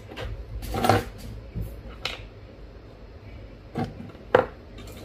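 A few light metallic clinks and clicks of small tools being handled on the repair bench, the sharpest near the end, over a steady low electrical hum.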